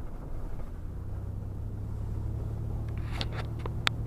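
Vehicle driving with a steady low rumble, followed by a few sharp clicks near the end.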